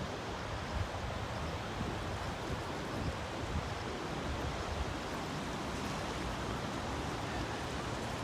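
Steady rushing of a river running high after a typhoon, with wind buffeting the microphone in uneven low rumbles.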